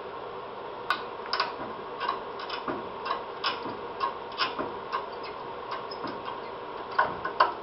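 Irregular clicks and scrapes of rusted sheet metal and loose rust scale as a bare hand pokes and pulls at the corroded inside of a 1966 Chevy truck cab's door hinge pillar. The two loudest clicks come near the end, over a steady background hum.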